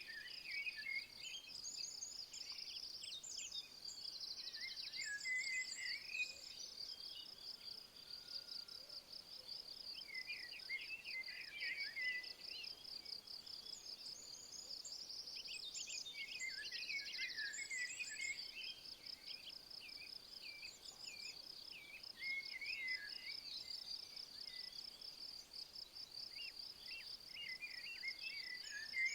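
A steady, fast-pulsing high insect trill, like a cricket's, runs throughout. Over it a songbird sings short bursts of quick chirps and trills every few seconds.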